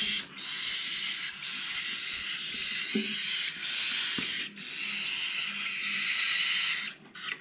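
Young cockatiels giving a continuous raspy hiss, broken by a couple of brief pauses and stopping near the end.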